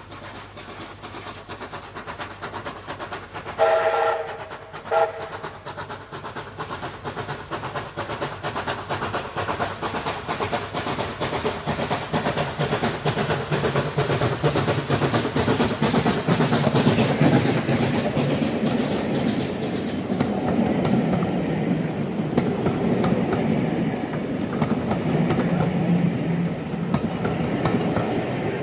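Steam locomotive whistling twice about four seconds in, a longer blast and then a short one. The train's running noise then builds up, loudest a little past halfway, and carries on as the train passes.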